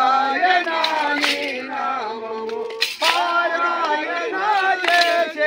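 A group of men singing a devotional bhajan together in unison, long held notes gliding between pitches, with hand claps every couple of seconds.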